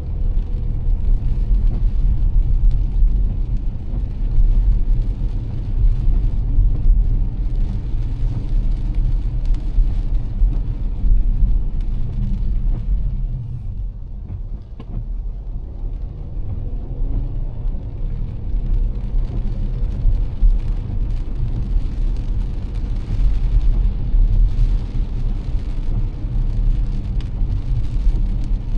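Car driving through heavy rain: a steady low road-and-tyre rumble under the hiss of rain and wet-road spray. The hiss thins out for a few seconds around the middle, then returns.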